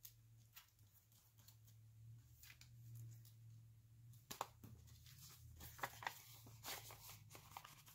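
Faint handling of paper greeting cards and an envelope on a tabletop: light rustles and taps, with a few sharper ticks and paper rustles in the second half, over a low steady hum.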